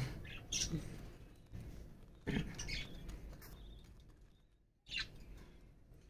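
A few faint budgerigar chirps, spaced a couple of seconds apart.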